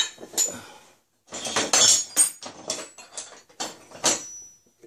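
Old steel tools and hooks clinking and clanking against each other as they are picked out of a pile and handled: a quick series of metallic knocks, several with a brief ring, one near the end ringing a little longer.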